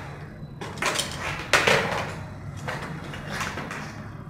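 Handling clatter and scrapes as a bare HP G4 laptop motherboard is picked up off the desk and a RAM module is handled and pushed into its slot. There are several short, uneven knocks and rubs, loudest about one and a half seconds in.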